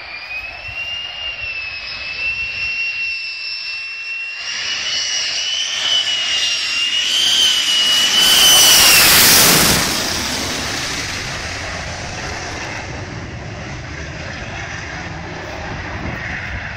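Lockheed Martin F-35A Lightning II flying low overhead, its Pratt & Whitney F135 turbofan giving a high, steady whine over a roar. The roar grows louder until the jet passes overhead about eight to nine seconds in. Then the whine cuts off into a broad roar that fades to a low rumble.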